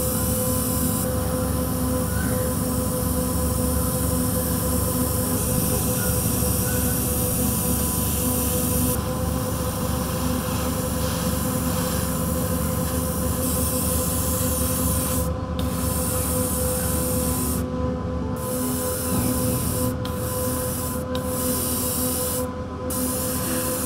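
Gravity-feed airbrush spraying paint with a steady hiss of air, which cuts off briefly about five times in the last third as the trigger is let go. A steady hum runs beneath it.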